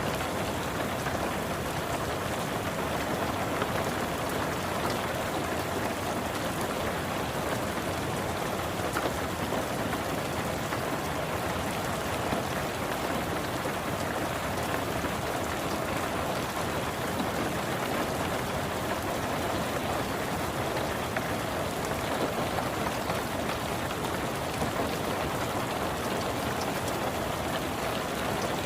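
Steady rain falling on a car's roof and windows, heard from inside the car as an even, unbroken patter.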